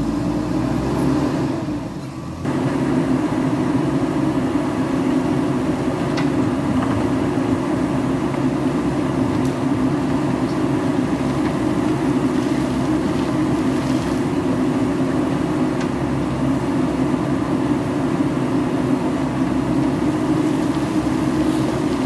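JCB backhoe loader's diesel engine running steadily under hydraulic load as the backhoe arm digs into landslide dirt and rock. It dips briefly about two seconds in, then holds steady.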